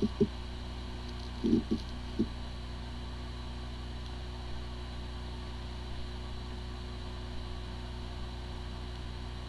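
Hard drive with corrupted disk firmware spinning with a steady hum, with a few short low knocks in the first two and a half seconds. The drive spins fine but cannot be accessed by any computer, the symptom of disk firmware corruption.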